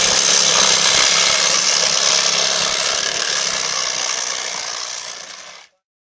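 Reciprocating saw fitted with a Starrett King-Cut fire and rescue blade cutting into a car at the windshield edge: a loud, steady harsh cutting noise over a low motor hum. It fades over the last couple of seconds and cuts off abruptly near the end.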